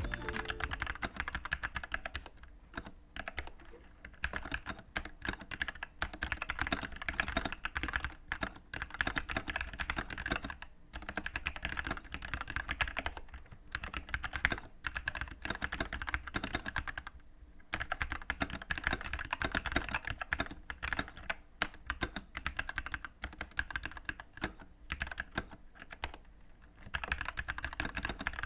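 Typing on a plastic-cased Dierya T83 mechanical keyboard fitted with Gateron Black linear switches and PBT pudding keycaps: a dense run of keystrokes with a few short pauses.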